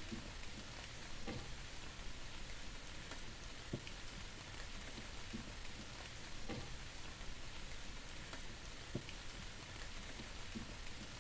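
Light steady rain, with scattered single drops ticking at irregular moments.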